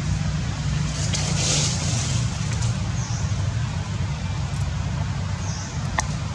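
Steady low outdoor rumble with a faint hiss over it, and a single sharp click near the end.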